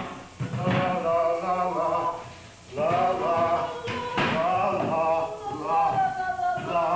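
Unaccompanied voices singing a brisk tune on 'la la la', with a short break about two and a half seconds in.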